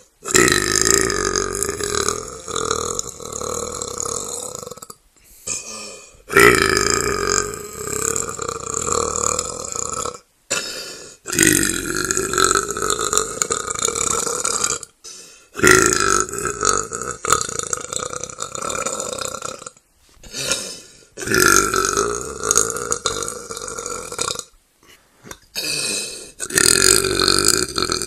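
A series of long, loud belches, most lasting three to four seconds, with a few shorter ones between, each cut off abruptly where one clip ends and the next begins.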